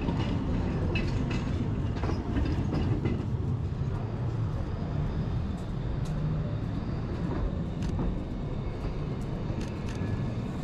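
A steady low rumble of a rolling vehicle with scattered light clicks, the kind PANN takes for a train or tram, under street ambience.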